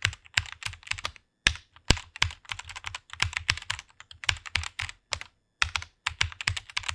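Someone typing quickly on a computer keyboard: rapid runs of key clicks with short pauses between bursts.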